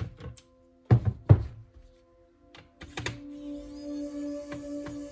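A few sharp clicks and two loud knocks in quick succession, like a laptop being handled, then background music with steady held notes coming in about three seconds in.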